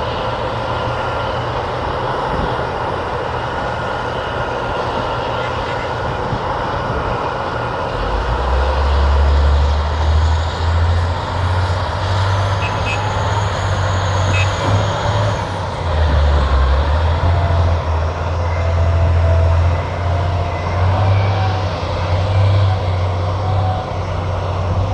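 Diesel engines of heavy earthmoving machinery running up close. A deep engine rumble swells about eight seconds in and stays loud, rising and falling as the machines work under load.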